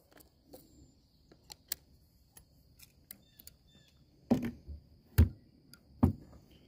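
Scattered light clicks of handling noise, then three dull thumps a little under a second apart.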